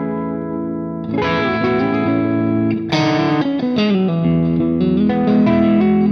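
1991 Ibanez Universe UV7P seven-string electric guitar on its split-coil and middle pickup setting, played through an amp-simulator plugin with reverb and delay: a held chord, new chords struck about a second in and near three seconds, then a run of single notes with a note sliding down.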